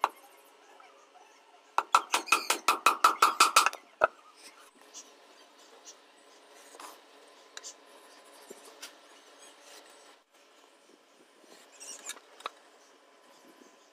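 Hand tool working a wooden plank: a quick run of about ten scraping strokes, roughly five a second, about two seconds in, then faint taps and handling clicks on the wood.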